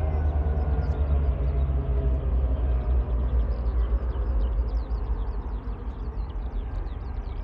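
Diesel locomotives of a passing TasRail train, 2054 leading with 2051: a deep, steady engine rumble with a low hum, its pitch dropping slightly and the sound gradually fading as the train draws away. Short high chirps join in from about three seconds in.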